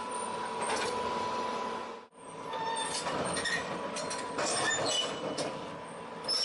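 Tracked excavator moving on metal, its undercarriage squealing and grinding metal on metal, with high squeaks coming and going over a steady mechanical din. The sound drops out briefly about two seconds in.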